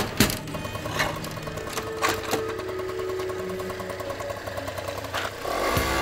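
Small motor scooter engine idling steadily, with a few sharp clicks in the first couple of seconds. Near the end a louder sound with a wavering pitch comes in.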